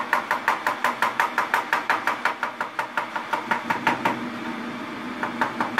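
Kitchen knife chopping a banana into slices on a plastic cutting board: quick, even taps of the blade on the board at about six a second, stopping for about a second some four seconds in, then starting again.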